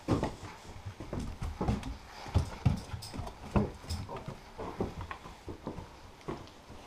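A Belgian Malinois moving about with an action camera strapped to its back: irregular thumps, knocks and rubbing of the harness and camera mount against the dog's body, a few a second, with no steady rhythm.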